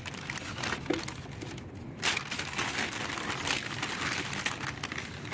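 Brown paper bag rustling and crinkling as a hand rummages inside it, irregular and busier from about two seconds in.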